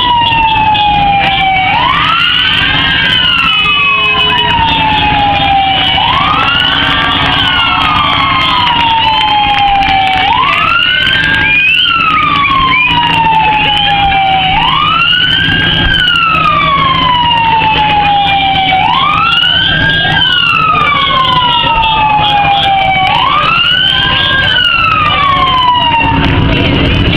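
Electronic vehicle siren wailing, its pitch sweeping up quickly and then falling slowly, over and over about every four seconds, with a low steady hum underneath.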